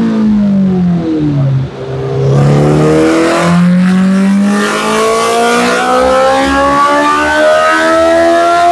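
2021 Honda CB1000R's inline-four engine through a full Akrapovic exhaust, run on a dyno. The revs fall for about a second and a half and there is a brief dip in loudness. Then the engine climbs in one long, steady rise in pitch under throttle.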